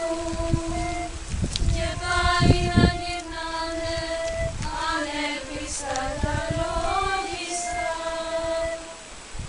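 A chorus of young female voices singing long held notes in unison, the line sliding up and down in the middle. Low rumbling thumps sound underneath, loudest about two and a half seconds in.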